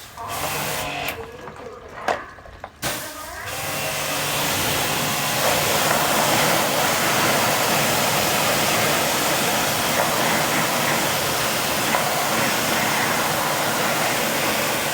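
A few knocks and clatter, then from about three and a half seconds in a loud, steady rushing hiss from a machine that starts up and keeps running.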